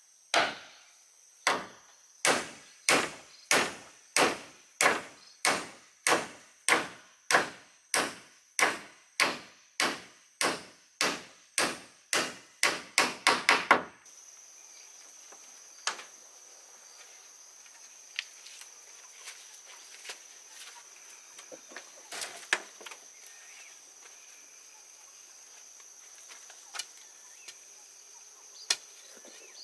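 A steady series of heavy blows of a hand tool on wood, about two a second, coming faster and louder near the end. About halfway through they stop abruptly, leaving a quiet background with a steady high-pitched tone and a few faint clicks.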